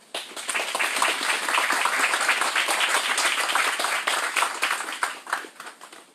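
Crowd applauding: many people clapping at once, starting suddenly and dying away after about five seconds.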